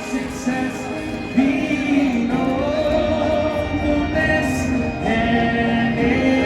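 Music with singing: long held sung notes that step from pitch to pitch over an accompaniment.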